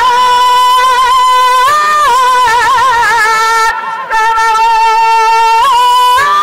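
Music: a single high melodic line of long held notes joined by quick wavering turns, with a brief dip in loudness about four seconds in.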